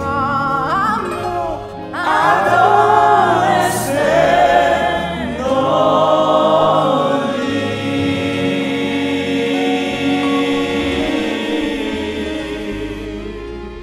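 Gospel worship song in Haitian Creole: a woman sings lead into a microphone with a praise-team choir over sustained accompaniment. The voices move through the phrase, then settle into long held notes that fade out toward the end.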